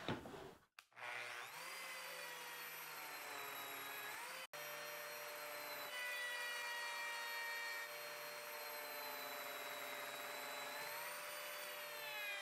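Lamello Zeta P2 slot-cutting joiner switched on about a second in: its motor whine rises as it spins up, then runs steadily while P-System slots are plunged into a plywood cabinet-box part, the pitch sagging slightly under load, and begins to wind down at the end.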